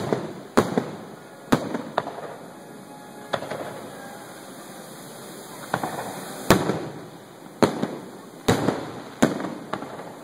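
Aerial firework shells bursting one after another: about ten sharp bangs at uneven intervals, each followed by a rolling echo. The loudest come at the very start and around six and a half and eight and a half seconds in.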